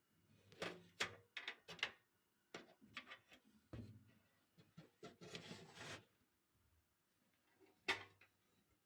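Faint handling noises from computer parts being worked on: a quick string of small clicks and knocks, a second of rubbing or scraping, then one last sharp click near the end.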